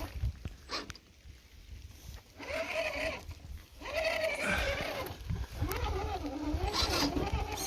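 Electric motor and drivetrain of a radio-controlled rock crawler whining in bursts as throttle is applied and let off, the pitch wavering up and down with wheel speed.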